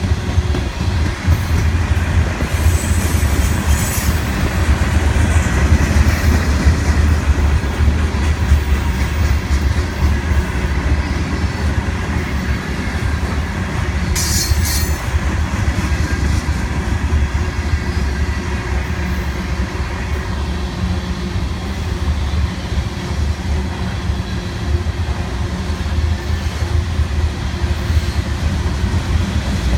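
Freight train of covered hopper cars rolling past: a steady, loud low rumble of steel wheels on rail, with short high wheel squeals a few seconds in and again about halfway through.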